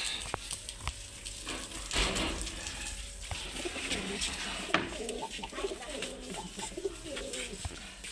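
Pigeon cooing in low, wavering calls through the second half. A short burst of splashing comes about two seconds in.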